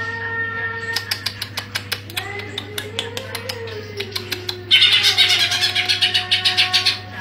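Caged cucak ijo (green leafbird) singing: rapid strings of sharp clicking notes and high chatter with a few drawn-out whistled tones, growing loudest and densest in a burst a little past the middle, over a steady low electrical hum.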